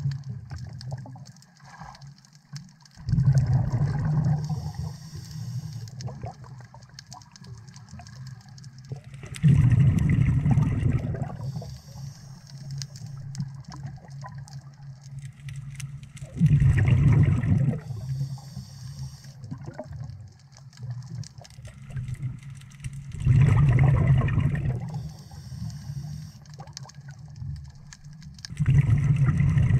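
A scuba diver breathing through a regulator, heard underwater: five loud bubbling exhalations, one every six seconds or so and each lasting about two seconds, with a fainter hiss between them.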